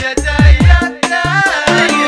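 Somali song music with a steady beat of deep drum hits that drop quickly in pitch, under held keyboard-like notes.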